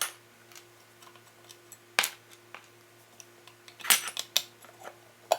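Sharp metal clicks and clinks from tools and small parts being handled while screws are taken out of a coffee grinder's back plate: one about two seconds in, a cluster around four seconds in, and one near the end. A faint steady hum sits underneath.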